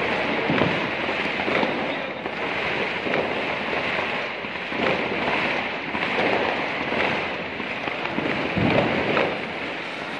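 A ground firework spraying sparks on pavement, giving a steady hiss throughout.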